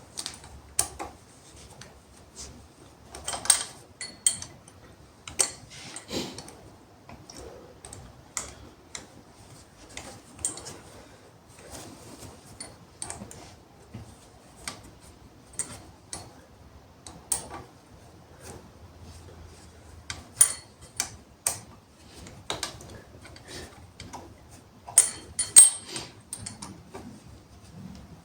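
Irregular clicks and light metallic taps from hand tools and small parts being handled, with louder clusters about three seconds in, around twenty seconds in and near the end.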